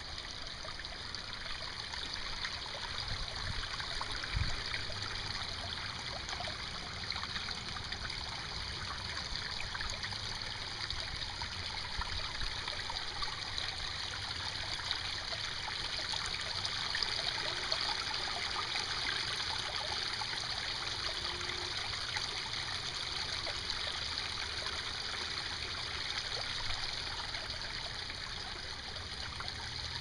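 Pump-fed backyard pond waterfall: water trickling and splashing steadily down a stack of granite rocks into the pond.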